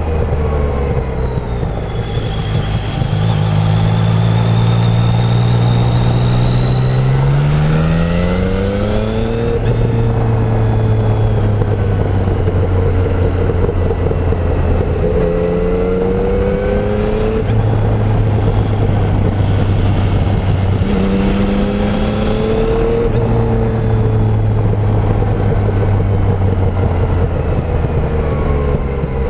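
Yamaha Tracer 900 three-cylinder engine through its stock exhaust, heard while riding. The revs climb steeply about a third of the way in, then fall away with an upshift. After that the engine holds a steady note, with a few smaller rises and falls as the rider changes speed and gear.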